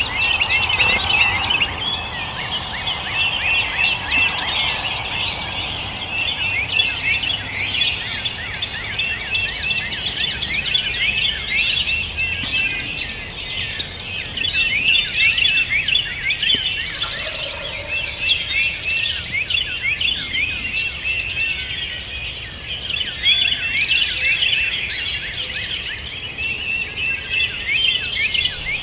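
Morning dawn chorus of many songbirds calling at once: a dense, steady chatter of short high chirps and trills.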